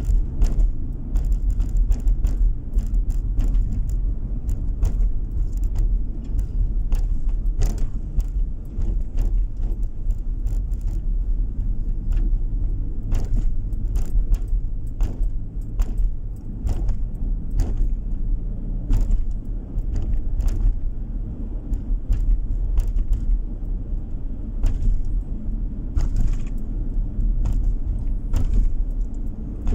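Car driving on a country road, heard from inside the cabin: a steady low rumble of engine and tyres on asphalt, with frequent irregular light clicks and rattles.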